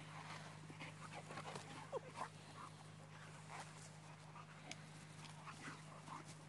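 Faint sounds of a boxer and a small terrier at play: short snuffly noises and a brief whine about two seconds in, over a steady low hum.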